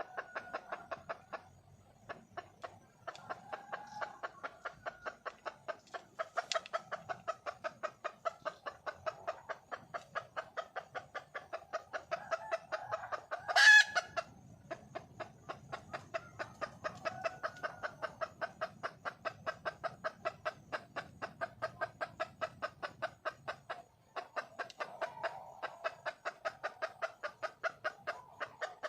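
Wild junglefowl hen clucking in a steady, rapid series of short notes, about four a second, with one louder, sharper call about halfway through: the hen's call for a mate.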